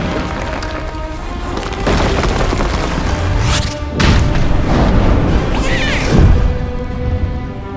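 Dramatic background music with deep booming sound effects, and a sweeping whoosh about three and a half seconds in.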